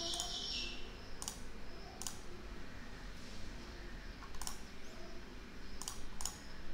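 Faint computer mouse clicks, about six, spaced irregularly over a few seconds, above a low steady hum.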